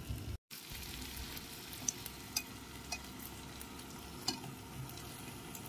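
Flour-dusted chicken breast pieces sizzling softly in shallow oil in a frying pan, with a few light clicks of metal tongs as the pieces are picked up. The sound drops out for a moment about half a second in.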